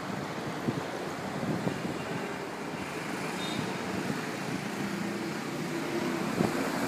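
A small hatchback car drives slowly up to the gate, its engine running and getting gradually louder as it approaches, over a steady hum of outdoor traffic.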